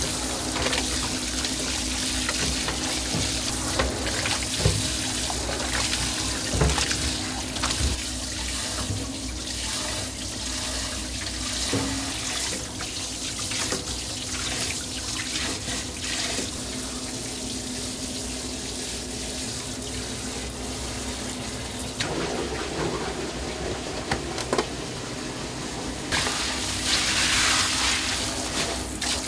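Water running and splashing in a restaurant kitchen, with scattered clinks and knocks over a steady low hum. The water grows louder and brighter near the end.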